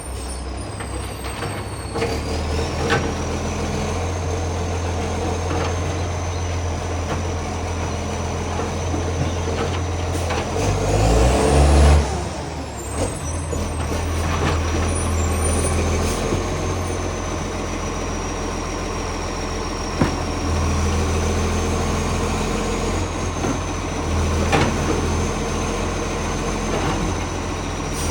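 Diesel garbage truck engine running with a leaking exhaust pipe that makes it unusually loud, revving up once about eleven seconds in and dropping back suddenly. A steady high whine runs under it, with a few short sharp bursts.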